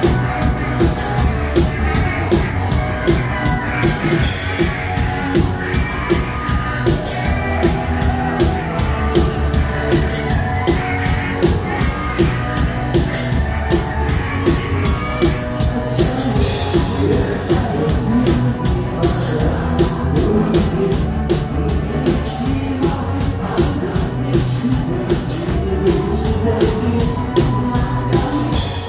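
A rock band playing live, with electric guitars and a steady drum beat, and a man singing into the microphone over it.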